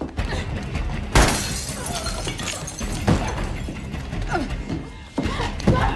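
Hand-to-hand struggle between two women: blows and thuds, with strained grunts and gasps. A sharp hit lands about a second in, and more follow near the middle and near the end.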